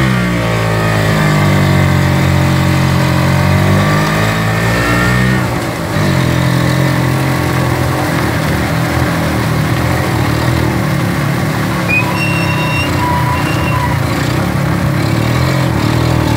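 Kawasaki HD-III tricycle's 125 cc two-stroke single-cylinder engine under way, pitch rising over the first couple of seconds, then falling as it eases off about five seconds in, then running steadily again to pull the tricycle along.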